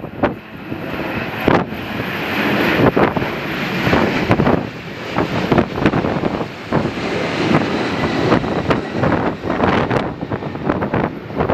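Strong gusty wind buffeting the microphone over the steady noise of jet airliner engines. The gusts swell over the first few seconds and stay loud.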